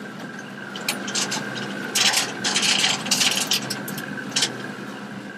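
A boat's engine running steadily, with bursts of rubbing and scraping noise, loudest from about two to three and a half seconds in and once more near the end.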